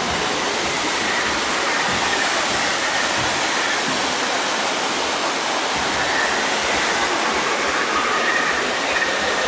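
Several small waterfalls pouring down a rock face into a pool: a steady, loud rush of falling water.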